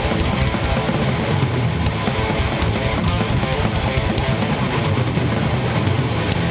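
Thrashcore band playing an instrumental stretch with fast drums and distorted electric guitars and bass, from a live recording.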